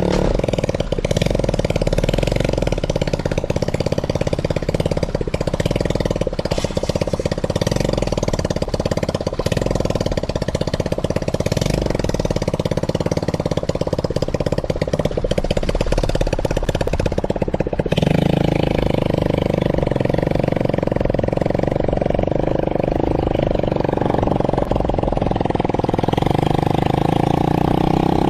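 Small ATV engine running steadily while being ridden, with a rushing hiss over the engine note. About eighteen seconds in, the hiss drops away and the engine carries on.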